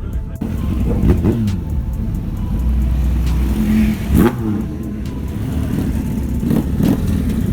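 Car engines at a car meet: a steady low rumble of idling engines with three quick revs that rise and fall, about a second in, near the middle and near the end.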